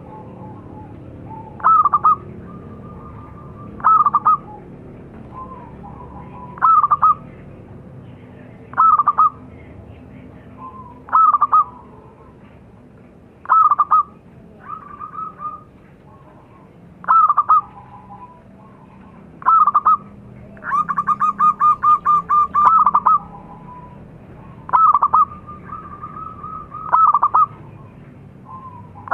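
Zebra dove (perkutut) cooing: a loud, falling call about every two seconds, with softer coos in between. About two-thirds of the way through comes a quick run of about a dozen rapid coos.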